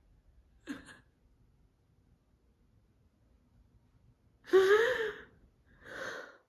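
A woman crying: a short sob about a second in, then a louder, drawn-out sob that rises in pitch, followed by a breathy intake of breath near the end.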